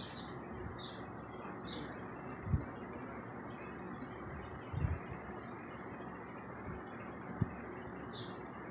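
Small bird chirping in the background: single short falling chirps every second or so, and a quick run of them around four to five seconds in, over a steady hiss. A few soft low thumps.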